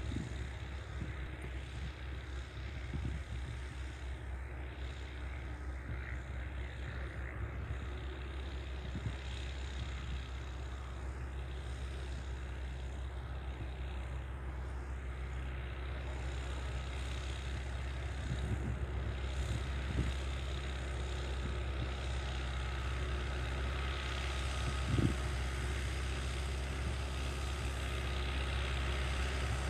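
MB-trac 900 turbo's six-cylinder turbodiesel engine running steadily under load as the tractor pulls a cultivator through stubble, heard from a distance and slowly getting louder as it approaches.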